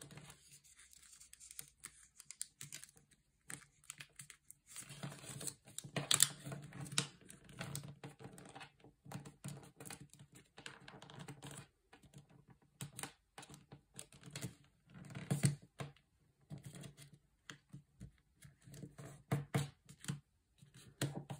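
Origami paper being folded and creased by hand on a wooden table: irregular soft rustles, crinkles and small taps as fingers press the folds flat, a little louder about six seconds in and again about fifteen seconds in.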